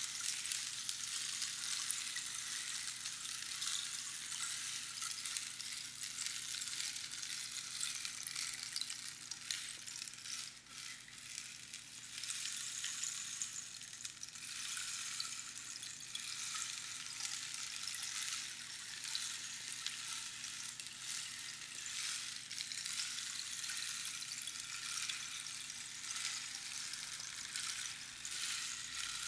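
Rainstick with its filling trickling down through the pins inside the tube: a continuous fine, crackly, rain-like hiss that swells and fades, dipping briefly about ten seconds in.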